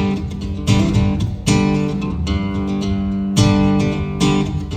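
Acoustic guitar strumming the opening chords of a country song, each chord struck sharply and left ringing, about once a second.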